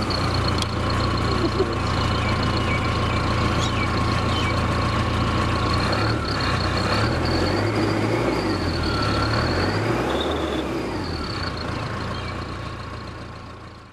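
Modified Mahindra Thar's engine idling, with the thin, steady whistle of an aftermarket exhaust turbo whistle sounding over it. The sound fades out near the end.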